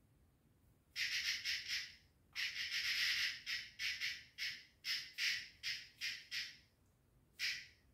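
A small prey animal caught by a cat gives a run of short, harsh, raspy calls, about two or three a second. They start about a second in, pause briefly, and end with one lone call near the end.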